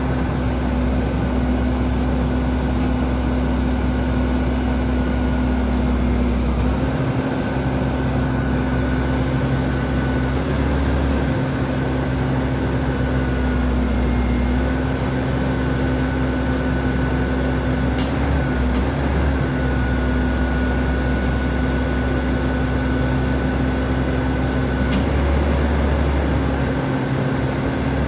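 Rear-loader garbage truck running at the curb: a steady engine hum with a higher whine that shifts slightly in pitch every few seconds as the truck works. A few sharp knocks come through near the middle and later on.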